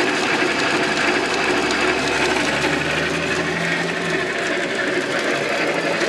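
1960s Craftsman horizontal metal-cutting bandsaw running steadily on its single-phase capacitor-start motor, with the belt and blade turning but nothing being cut. A deeper hum comes in for about two seconds in the middle. The motor is turning the wrong way, so the blade runs backwards.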